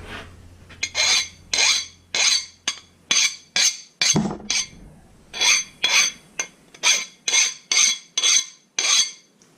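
A file drawn in short strokes across a freshly hardened, quenched steel dagger blade to test its hardness: about fifteen scraping strokes, roughly two a second, with a short pause around the middle.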